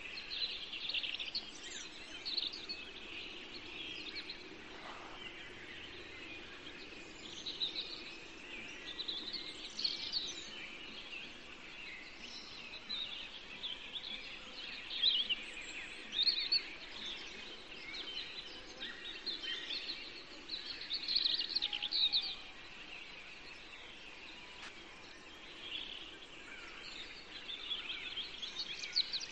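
Small birds chirping and twittering in a continuous chorus of short, high calls, with a few louder bursts of song, over faint steady background noise.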